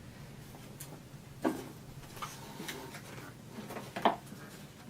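A few light clicks and knocks of plastic shop-vac parts being handled, the two strongest about a second and a half in and near the end.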